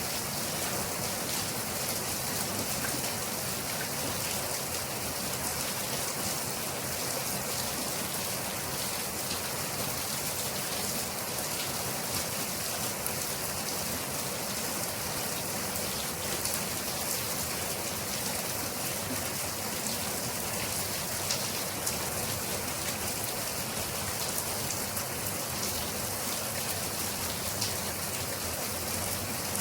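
Steady rain falling, a continuous hiss with the patter of individual drops on a surface.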